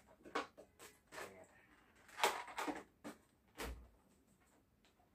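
Scissors snipping the knotted ends off latex modelling balloons, with the balloons rubbing as they are handled: a string of short snips and rubs, and a soft low thump about three and a half seconds in.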